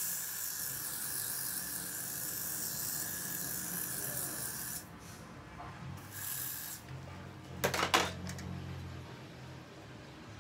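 Aerosol can of Got2b Glued Blasting Freeze spray hissing in one long spray of about five seconds, then a second short burst about a second later, as the glue spray goes onto the hairline. A few sharp knocks follow, the loudest sound here.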